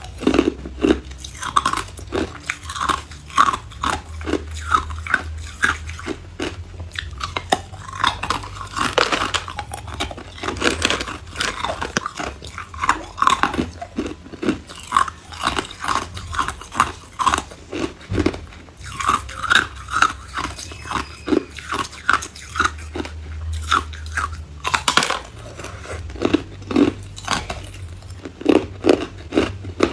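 Hard ice cubes being bitten and chewed at close range: a steady run of sharp, irregular crunches, several a second.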